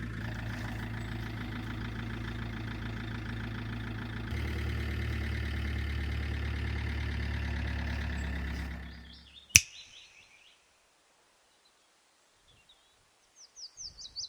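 Camper van engine running with a steady drone, a little louder from about four seconds in, then fading out around nine seconds. A sharp click follows, and near the end a bird sings a quick run of falling chirps.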